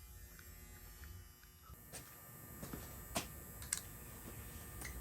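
Faint, steady low electrical hum with a few light clicks scattered through the second half.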